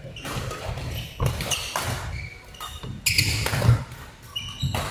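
Badminton rally: rackets striking the shuttlecock in sharp cracks and shoes squeaking on the court floor, busiest a little after three seconds in.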